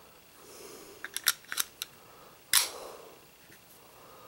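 Handling clicks of a stainless steel pistol magazine, a quick run of about four small clicks, then one sharper metallic snap with a short ring about two and a half seconds in as the magazine is seated in an NAA Guardian .32 ACP pocket pistol.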